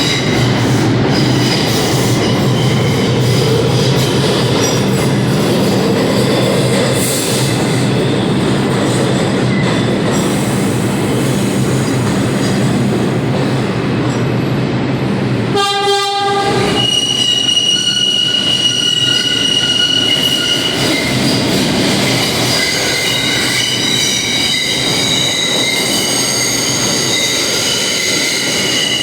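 R62A subway train on the 6 line: steady rumble of the train in the station, then one short horn blast about halfway through. The train then pulls out with high, steady wheel squeal.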